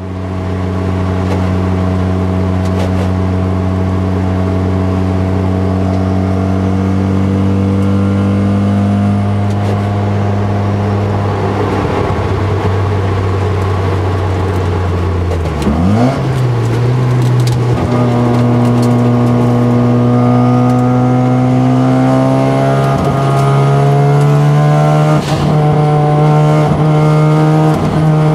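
The Mazda RX-7 FD3S's single-turbo 13B twin-rotor rotary engine heard from inside the cabin, running steadily under light load with its pitch slowly sagging. Around 16 seconds in the revs jump sharply, as on a gear change, and the pitch then holds and climbs gradually as the car accelerates.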